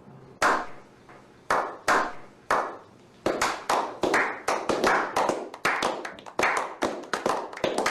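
Hands clapping: a few slow, single claps about a second apart, then faster clapping.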